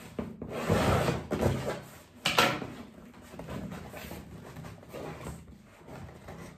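Cardboard shipping box being handled and pried open by hand: rustling and scraping of the cardboard, with a short, louder rasp about two and a half seconds in.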